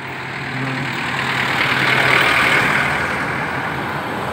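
A jeepney's engine and tyres going past close by, followed by an SUV. The noise swells to a peak about halfway and then fades away.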